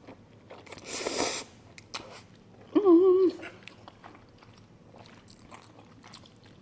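Spicy instant noodles slurped in once, a loud hissing slurp about a second in. This is followed near the three-second mark by a short hummed "mmm" of enjoyment with a wavering pitch, then quiet chewing and small clicks.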